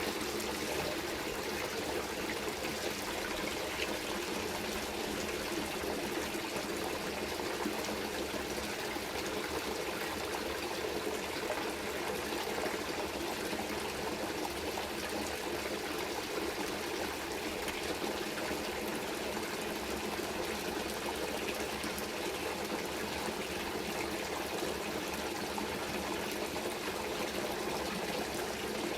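Running water, a steady stream or trickle flowing without a break.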